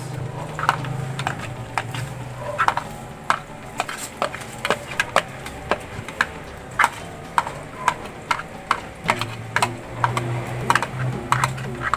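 A long metal spoon clinking and scraping against a wok and a plastic ingredient tray as chopped onions are scooped and stirred in: sharp clinks, one or two a second.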